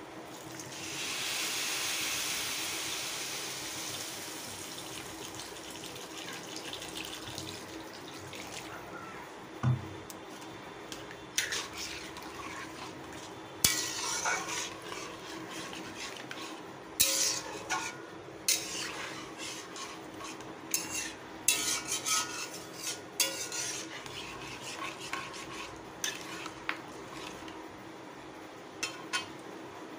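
Water poured into a hot metal kadai of fried rice and vegetables sizzles loudly, then dies down over several seconds. After that a metal spatula stirs the watery khichdi, scraping and clicking against the pan again and again.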